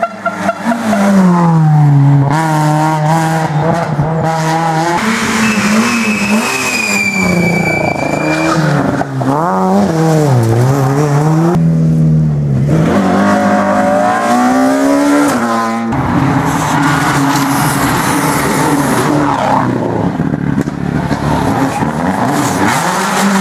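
Rally cars driven flat out one after another, among them a BMW 3 Series (E36) and a Subaru Impreza WRC, their engines revving up and dropping again through quick gear changes, with the sound cutting abruptly between cars. A high squeal lasts about two seconds, some six seconds in.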